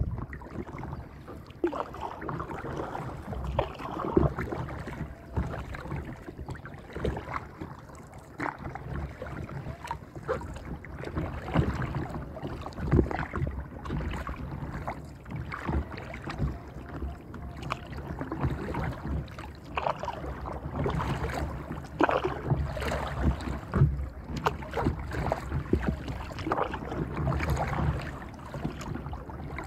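Water splashing and lapping against a plastic paddleboard hull in irregular small splashes, as it is paddled across choppy water. Wind rumbles on the microphone.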